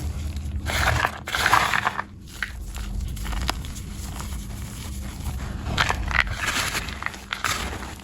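Blocks of gym chalk being crushed, crunching and crumbling with small sharp cracks. There are two main bouts, one about a second in and one near the end.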